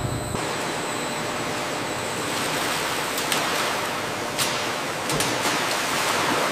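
Water rushing and churning steadily in stainless steel wash tanks, with a few brief sharper splashes about halfway through.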